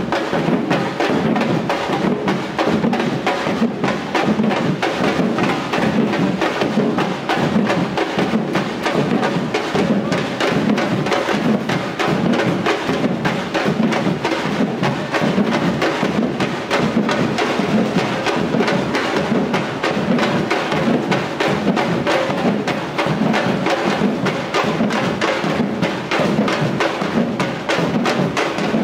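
A samba-reggae drum band playing a loud, steady, driving rhythm on surdo bass drums and other drums, with dense, evenly repeated strokes throughout.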